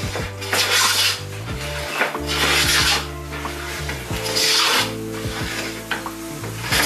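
Wooden smoother plane cutting shavings from a board: a scraping stroke about every two seconds, four in all, over background music.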